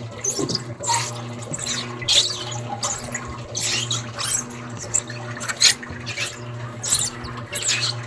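Electrolux Essential Care 11 kg top-load washing machine agitating a load: a steady low motor hum under irregular splashing and sloshing of water and clothes in the drum, a noise the owner says is not mechanical.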